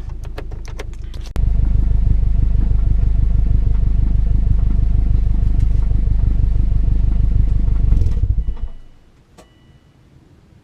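Subaru WRX flat-four engine running with an even, pulsing low rumble, jumping suddenly louder about a second and a half in, then dying away near the end.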